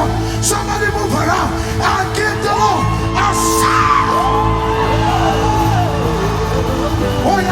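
Live gospel praise music: sustained keyboard chords over a steady bass, with a wordless vocal ad-lib sliding up and down and holding one long high note in the middle.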